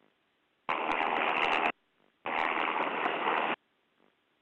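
Helicopter crew intercom keyed open twice without words, each time for about a second, passing the MH-60 Jayhawk's cabin noise as a rushing hiss that starts and stops abruptly.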